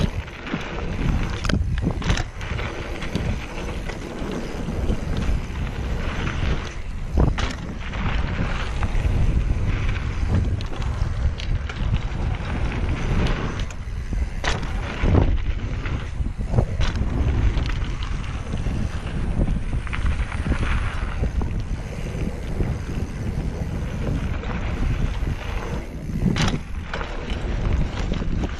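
Mountain bike riding a dry dirt trail: steady wind buffeting on the bike-mounted microphone over the rumble of the ride, with scattered sharp knocks and rattles as the bike goes over bumps.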